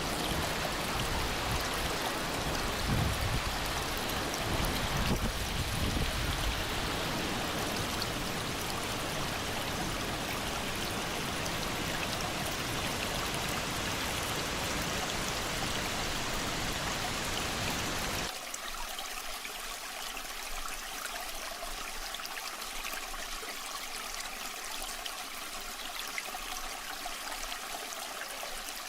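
Waterfall water rushing and splashing steadily, with some low rumbling in the first few seconds. About two-thirds of the way in it changes abruptly to a thinner, lighter flow with little low end.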